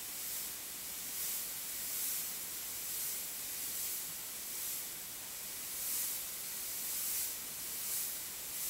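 Gravity-feed airbrush spraying ink: a steady hiss of air at the nozzle that swells gently about once a second.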